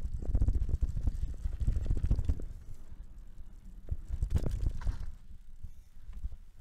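Mountain bike riding over a rough trail, picked up by an action camera on a handlebar mount: a low rumble with rapid, uneven clattering knocks from the bike and the vibrating mount. It is heaviest in the first couple of seconds and again about four seconds in, easing in between.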